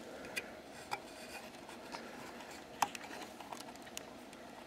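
Faint handling noise of hands and meter test probes working among the wiring of an old valve radio chassis: light scratching with a few sharp little clicks, the clearest about a second in and near three seconds.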